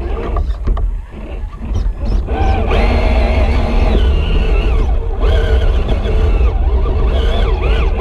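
Electric motor and gear whine of a scale RC crawler truck driving up a dirt trail, heard through a camera mounted on the truck, over a constant heavy rumble from the chassis. Scattered knocks in the first two seconds as it jolts over the ground; the whine sets in about two and a half seconds in, dips, and comes back.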